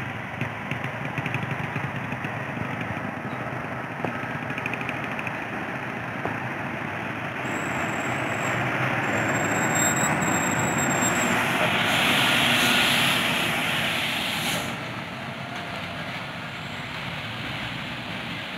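Loaded heavy cargo truck's diesel engine pulling steadily up a steep hairpin bend; it grows louder as the truck comes closest, a little past halfway, then drops back.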